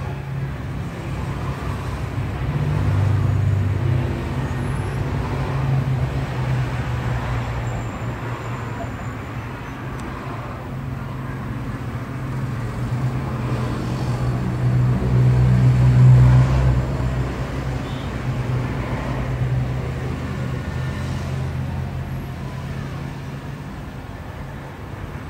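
Steady rush of air from a hot air rework station's nozzle, blowing onto a BGA reballing stencil to melt the solder balls onto the HM65 chip. Under it, a low rumble swells twice, about three seconds in and again around sixteen seconds.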